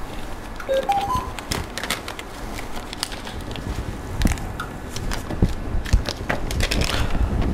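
Crackling and rustling of a transparent film dressing being handled and smoothed down with latex-gloved hands, many small irregular crackles throughout. A few short squeaks about a second in.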